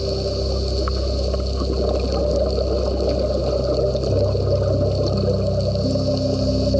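Background music: a slow ambient track of held low notes that move to new pitches a few times, over a steady hiss.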